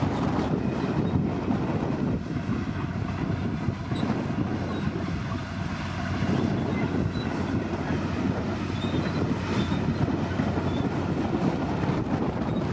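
Diesel engine of a Komatsu D60P bulldozer running steadily while it pushes soil, a low rumble.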